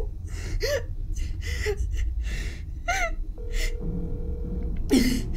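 A woman crying: shaky gasping breaths and short high whimpering sobs over a low steady drone. A little past halfway a steady phone tone sounds for about a second and a half, and a sharp gasp comes near the end.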